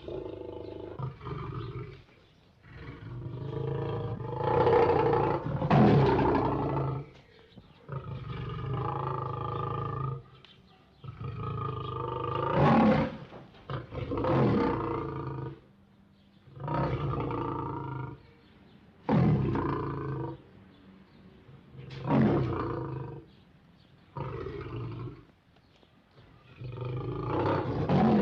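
Barbary lion roaring: a long series of deep, pitched roars, each a second or two long, with short pauses between. The loudest roars come a few seconds in and again about halfway through.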